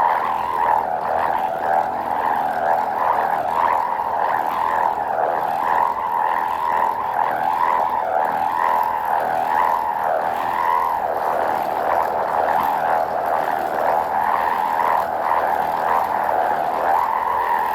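Mandar layang lake kite humming in the wind: the kite's hummer gives a steady, wavering drone that swells and dips slightly but never stops.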